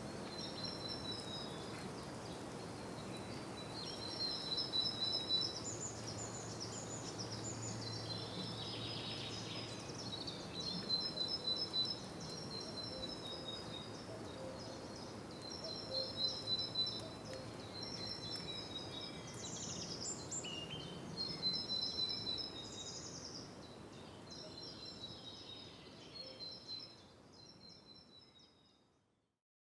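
Birdsong ambience: one or more small birds singing repeated high chirping phrases over a steady outdoor hiss, fading out near the end.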